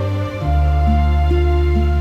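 Slow, gentle instrumental background music: soft held chords over a deep sustained bass note, the chord changing about half a second in.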